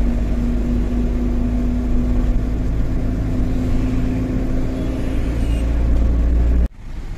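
Tata 1512 truck's diesel engine running steadily at cruising speed, heard from inside the cab as a low drone with road noise. The sound cuts off abruptly near the end.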